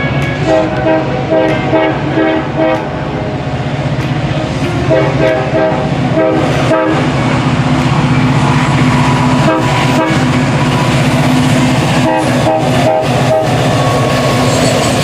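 Freight train's lead GE AH44CW locomotive sounding a Nathan K5LA five-chime horn in rapid short blasts. The blasts come in bunches at the start, again around five to seven seconds in, and once more near the end, over the steady drone of the diesel locomotives and the rolling train.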